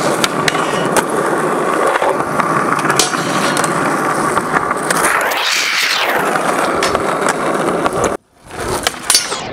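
Skateboard wheels rolling on rough asphalt: a steady loud rolling noise broken by sharp clacks of the board. About five and a half seconds in, a board rolls close past, rising then falling away. Just after eight seconds the sound cuts out abruptly for a moment before more clacks.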